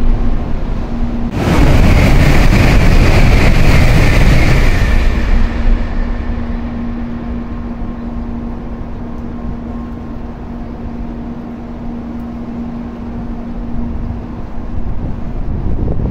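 Shinkansen trains passing through the station at high speed: the tail of one passage at the start, then about a second in a sudden loud rush of air and running noise with a high whine as a second train goes by, fading out over a few seconds to a quieter hush.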